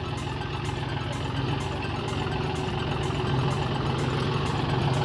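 John Deere tractor's diesel engine running steadily, a low drone.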